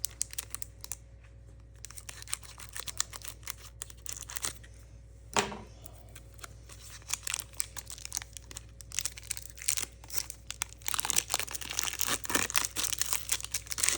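Foil wrapper of a Pokémon card booster pack crinkling and tearing as it is opened, in scattered crackles with one louder snap about five seconds in, growing denser and louder near the end.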